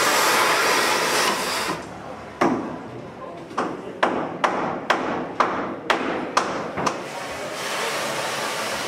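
Gas cutting torch hissing steadily as it cuts through the old steelwork of a steam locomotive being dismantled. After about two seconds it gives way to about nine sharp hammer blows on metal, roughly two a second.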